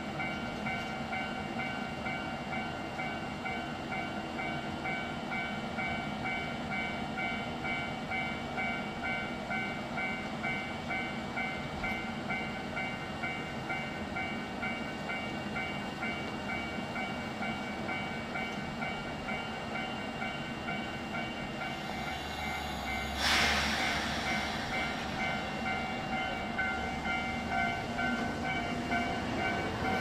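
Level-crossing warning bell ringing in a steady, evenly pulsed ding-ding while an 8500 series electric train stands on the crossing. About two-thirds of the way through, a sudden loud hiss of air sounds and a low hum rises under the bell.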